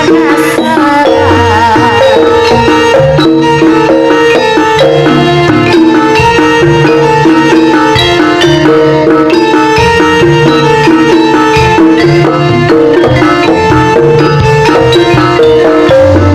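Jaranan Senterewe gamelan ensemble playing loudly and continuously: hand drums beat out a fast rhythm under repeating notes on tuned gongs and metallophones, with deep gong tones sounding at intervals.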